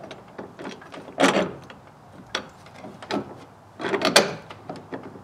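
A bolt being worked into a door hinge's lined-up bolt holes: a handful of irregular metal clinks and knocks, the loudest about a second in and near the end.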